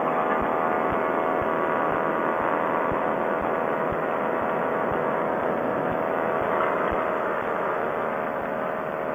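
Quicksilver Sprint ultralight's engine and propeller running steadily at takeoff power through the takeoff roll and lift-off, easing slightly near the end.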